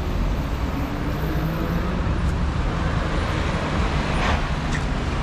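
Road traffic: a steady low rumble of cars and a bus moving through an intersection, with a brief hiss about four seconds in.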